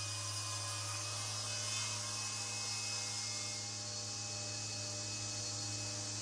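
Woodworking machinery running steadily with a constant low hum, with a second, higher steady hum joining about a second in.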